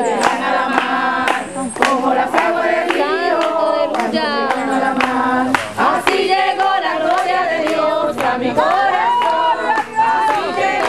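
A congregation of many voices, women prominent, sings together while clapping along in a steady beat.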